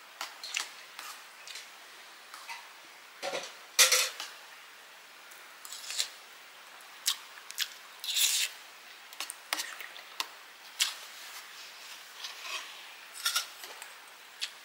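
Irregular clinks, scrapes and soft squishes of a meal of rice and egg curry being mixed and scooped from a plate. The sharpest clink comes about four seconds in, and a slightly longer scrape comes near eight seconds.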